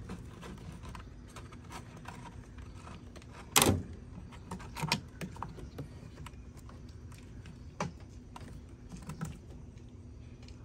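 Scattered clicks and knocks of hand tools and a plastic coolant overflow tank being handled and seated, with one sharp knock about three and a half seconds in.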